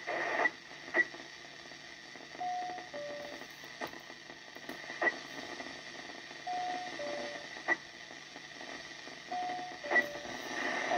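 Yaesu FT-102 transceiver receiving 10 m FM, its speaker giving a steady hiss broken by sharp clicks. A short two-note falling beep comes three times, about three and a half seconds apart.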